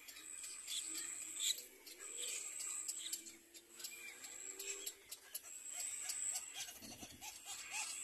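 Cormorant chicks calling at the nest: scattered squeaks and clicks over a high steady buzz, with a quick run of short repeated calls near the end.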